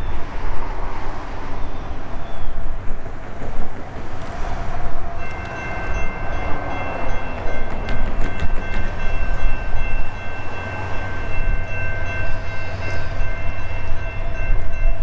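Locomotive air horn of an approaching Norfolk Southern GE AC44C6M, sounding a steady multi-note chord that starts about five seconds in and holds for about ten seconds, over a steady low rumble.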